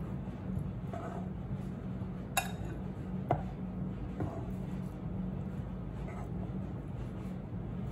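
Metal kitchen tongs clicking and clinking as grilled chicken pieces are picked up and set into a glass dish, with two sharper clinks a little after two and three seconds in. A steady low hum runs underneath.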